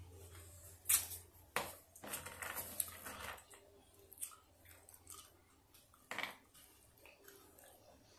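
Close-miked mouth sounds of someone eating sour candy: a few sharp wet smacks and clicks, with a stretch of chewing in the first few seconds.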